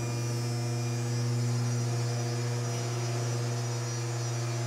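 A steady low electrical hum with evenly spaced overtones, holding one pitch throughout and cutting off about a second after the end.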